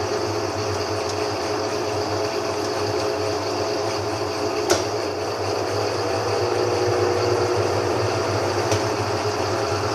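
GE 15 kg top-loading washing machine on its full-speed spin, a steady hum and whine with no knocking of the tub against the cabinet: the banging fault is cured. One sharp click a little before halfway through.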